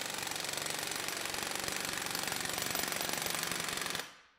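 Half-inch air impact wrench hammering continuously against a torque dyno in a timed forward run, a fast, even rattle of blows that cuts off suddenly about four seconds in.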